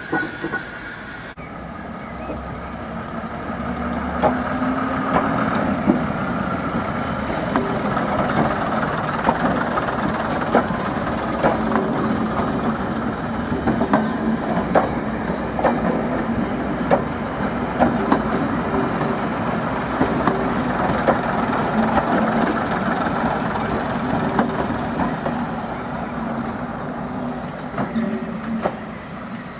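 A first-generation diesel multiple unit passing at close range, its diesel engines running with a steady drone while its wheels click over the rail joints about once a second. The sound builds over the first few seconds and fades near the end as the train moves away.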